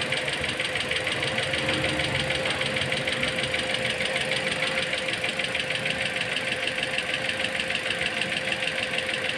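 Toyota Altis engine idling with a fast, even knocking, along with a steady hum. The knocking comes with coolant that keeps bubbling after the engine ran without coolant, which the mechanic takes for a damaged engine.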